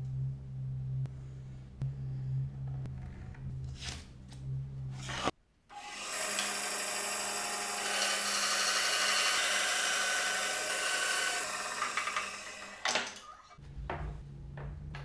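Band saw cutting a wooden board, a loud even hiss from about six seconds in that stops about seven seconds later. Before and after it, light handling taps and rubs of wood and paper over a low steady hum.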